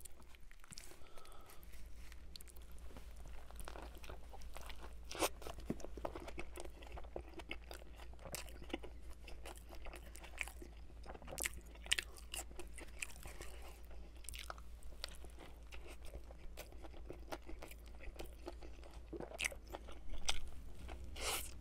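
Close-miked chewing of a large lettuce-topped burger: soft crunches and wet smacking clicks, with a louder bite near the end. A steady low hum runs underneath.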